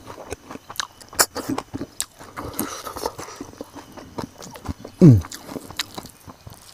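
Chewing and crunching of crispy fried grasshoppers with rice, a steady scatter of small crunches and mouth clicks. About five seconds in, a short low falling hum from the eater.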